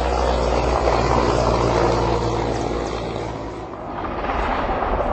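Mi-17V5 military helicopter flying low overhead: a steady drone of rotor and turbine that dips a little about three seconds in, then builds again.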